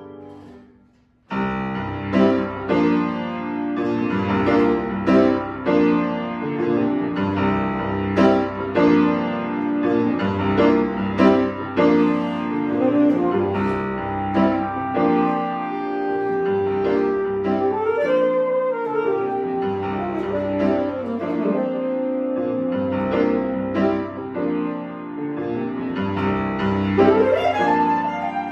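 Grand piano and alto saxophone playing classical chamber music. After a brief pause, both come in together about a second in with accented, rhythmic piano chords. From midway the saxophone holds long notes over the piano, bending in pitch a few times.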